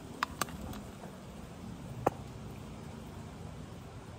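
A few sharp clicks over steady outdoor background noise: two in quick succession at the start and a single louder one about two seconds in, typical of handling noise.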